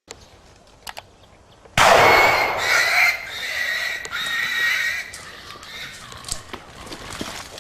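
A single shotgun shot about two seconds in, its report trailing off over the next few seconds, with a high, wavering cry heard along with it.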